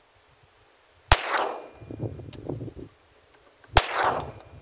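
Two shots from a Glock 20 pistol in 10mm Auto, about two and a half seconds apart, each followed by a trailing echo.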